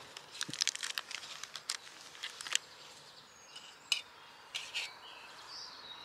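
Light clicks and scrapes of a metal spoon against a metal camping mug while eating, mostly in the first half. Faint bird chirps come in the second half.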